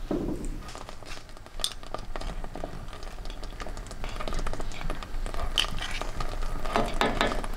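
Rarebit sauce (butter, flour, ale and cheese) sizzling and crackling in a saucepan on the hob, with scattered small clicks and scrapes of stirring and spooning, and a brief burst of clatter near the end.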